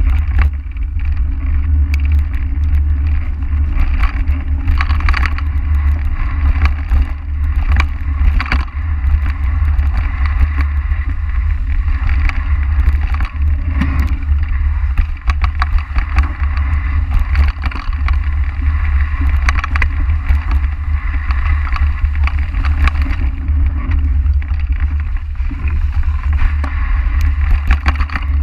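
Continuous wind rumble on the microphone of a bike riding downhill at speed, over the crunch and rattle of tyres rolling through fallen leaves and over dirt singletrack. Frequent small clicks and knocks come from the bike jolting over the trail.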